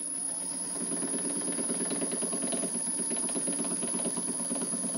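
Small model steam engine running with a rhythmic knock over a steady steam hiss. The knock is the piston striking water in the cylinder at each end of its stroke.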